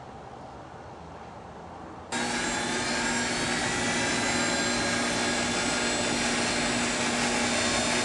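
Homemade jet engine rig built on a T3 turbocharger, with an electric leaf blower blowing start air into its compressor, running loud and steady with a steady whine. It comes in abruptly about two seconds in, after a faint hiss.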